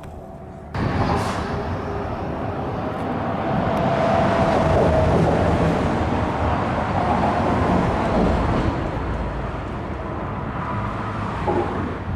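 Road traffic: a vehicle's engine and tyre noise swelling to a peak about halfway through and slowly easing off.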